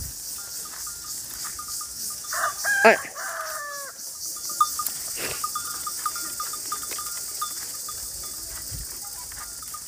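A rooster crows once, about two and a half seconds in, over steady outdoor background noise with faint short chirps repeating.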